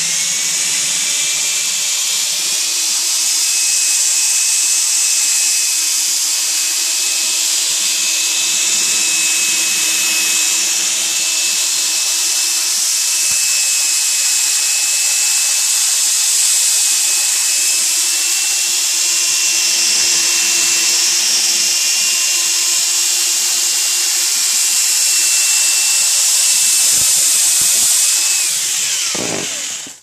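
Power drill running steadily, spinning a fiberglass rod and rotary brush that scrubs the inside of a foil flex dryer vent duct. The motor whines at a constant pitch, then winds down and stops near the end.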